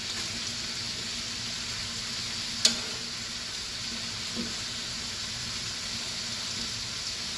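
Chicken and broccoli sizzling steadily as they are stir-fried in a nonstick pan and turned with a plastic spoon. A single sharp clack comes about two and a half seconds in, and a softer knock a couple of seconds later.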